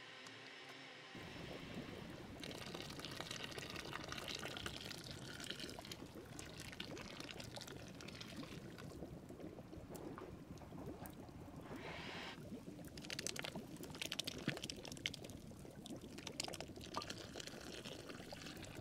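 A pot of turkey broth simmering, full of small bubbling crackles, while a thin red chile-tomato sauce is poured into it.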